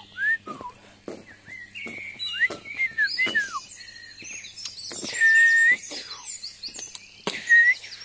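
Several songbirds singing over one another: quick, gliding whistled notes, denser and higher in the second half. The two loudest sounds are longer, level whistles about five and seven seconds in.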